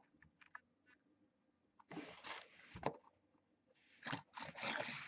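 A figurine and its cardboard box being handled: a few light clicks, then two spells of rustling and scraping, about two seconds in and again from about four seconds in.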